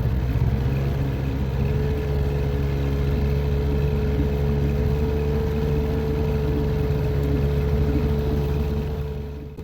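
Evinrude outboard motor running steadily under way on a john boat: a loud, even hum with a steady whine on top, cutting off suddenly at the end.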